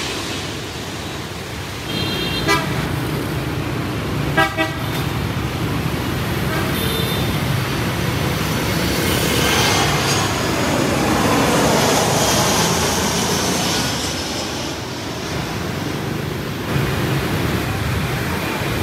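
Street traffic noise with short vehicle horn toots, one about two seconds in and a louder one about four and a half seconds in. The noise swells from about nine to thirteen seconds in.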